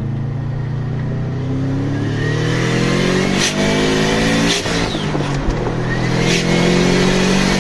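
Turbocharged Subaru EJ20G flat-four accelerating hard under boost, heard from inside the cabin. The revs climb steadily through a gear, fall at a gear change about four and a half seconds in, then climb again.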